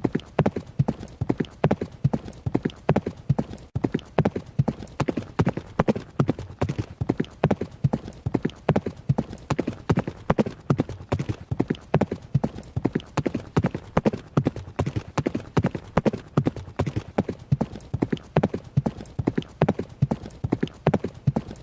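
Hoofbeats of a running horse: a fast, steady, rhythmic clatter of hoof strikes, several a second, falling in repeating groups of strides.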